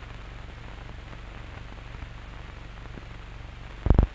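Steady hiss and low hum of an old cine film soundtrack, with no voice. Two brief loud sounds come near the end, about half a second apart.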